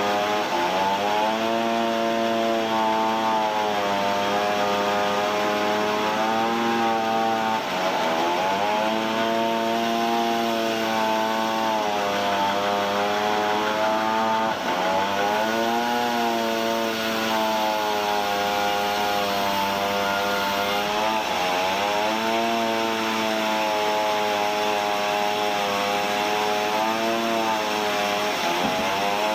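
Sawmill saw running through a softwood log, its motor note steady but sagging and recovering about every seven seconds as the blade takes and sheds load in the cut.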